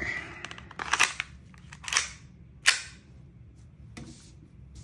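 VFC Sig Sauer P226 MK25 gas blowback airsoft pistol being loaded and fired: a few metal clacks as the magazine goes in and the pistol is readied, then one sharp shot with its slide cycling, about two and a half seconds in.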